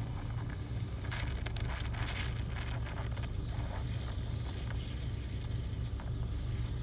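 A vehicle engine running steadily, with scattered knocks and rustling about a second in and a faint, wavering high-pitched whine from about halfway through.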